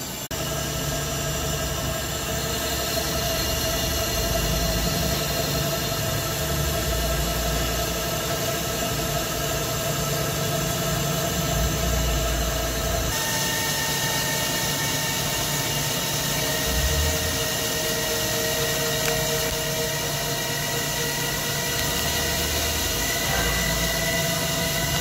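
Hankook Protec 9-NC CNC lathe turning a large metal ring, the spindle running while a carbide insert cuts, with steady high whining tones over the machine noise. The pitch of the whine jumps about halfway through.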